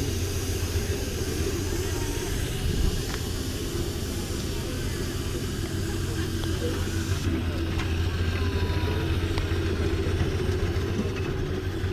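Miniature steam traction engine hissing steam over a steady low rumble; the high part of the hiss drops away about seven seconds in.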